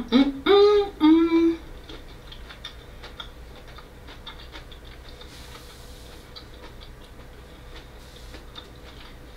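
A woman chewing a mouthful of raw cauliflower with her mouth closed: faint, irregular wet mouth clicks and crunches. In the first second and a half she gives a couple of short hummed "mmm"s of enjoyment.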